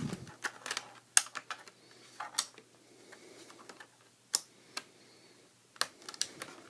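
Irregular sharp plastic clicks and knocks from a Toshiba Satellite C655 laptop as its battery is unlatched and pulled off the back of the case.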